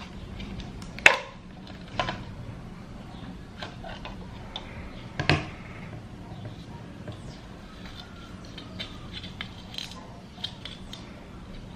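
Plastic parts of a hand-operated kitchen chopper clicking and knocking as it is taken apart, the red lid and bladed insert coming off the clear bowl. A sharp knock about a second in is the loudest, another comes about five seconds in, with lighter clicks between and after.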